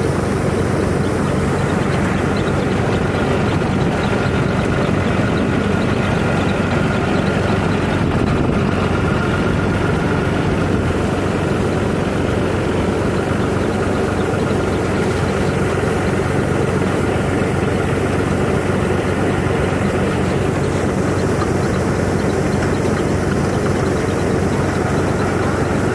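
Wheat harvesting machine running steadily at constant speed, with a continuous engine drone.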